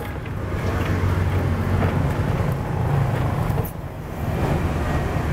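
Low, steady rumble of passing road traffic, dipping briefly a little under four seconds in.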